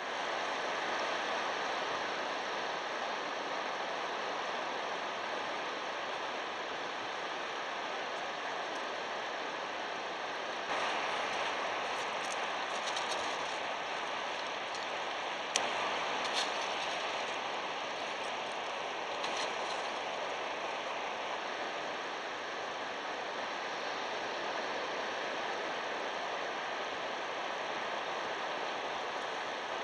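Steady beach ambience: an even rushing hiss of wind and surf, with a few faint clicks around the middle.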